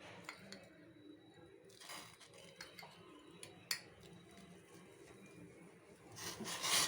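Faint handling noises of cooking utensils at a pot on the stove, with one sharp click about halfway through and a louder, brief rush of noise near the end.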